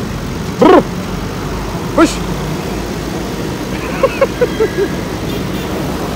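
Steady hum of road traffic and a running vehicle engine. It is broken by two short, loud pitched calls about a second and a half apart near the start, and a quick run of five or six shorter calls about four seconds in.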